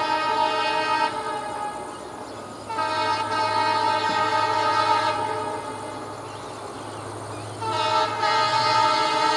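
Diesel locomotive's multi-tone air horn sounding in three long blasts: one that stops about a second in, one of about two seconds, and one that starts near the end and holds on. Under and between the blasts the locomotive's diesel engine runs with a steady low drone as the train approaches.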